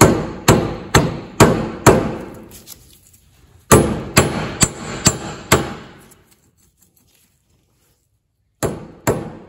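Hammer blows on the seized front wheel hub of an Allis-Chalmers D17 tractor, driving it off the spindle. Sharp, ringing metal strikes come about two a second: five, a short pause, five more, a few seconds of silence, then three more near the end.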